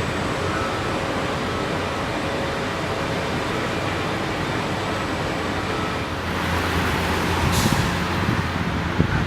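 Heavy diesel vehicle or machine engine running steadily, with a short sharp hiss of air about seven and a half seconds in. The rumble grows rougher toward the end.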